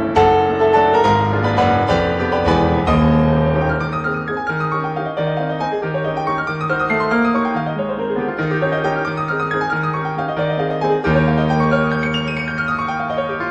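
Background piano music: a steady stream of notes over sustained low bass notes.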